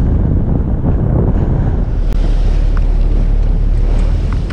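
Wind buffeting the microphone over the steady rumble of the fishing boat's engine as it runs to a new spot.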